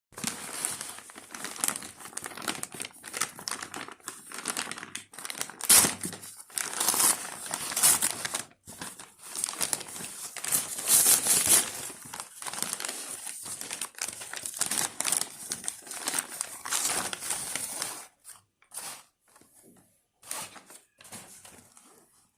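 Packaging being unwrapped by hand: dense, irregular crinkling and rustling that thins out to a few separate rustles after about 18 seconds.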